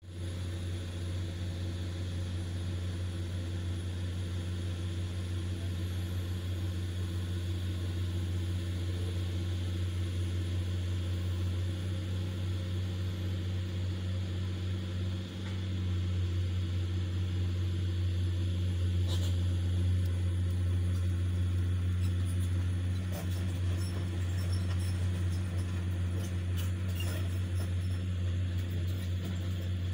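Komatsu PC200 hydraulic excavator's diesel engine running at a steady pitch, with a few light clicks and clanks in the second half.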